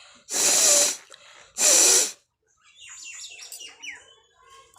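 A person blowing their nose hard twice: two loud, noisy blasts, the first about half a second long and the second slightly shorter, a moment apart. Faint bird chirps follow.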